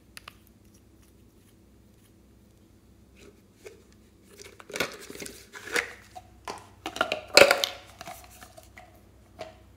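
A hard plastic toy is handled and pulled apart, giving a run of crackly plastic clicks, creaks and scrapes that is loudest a little past the middle. A couple of small sharp clicks come right at the start.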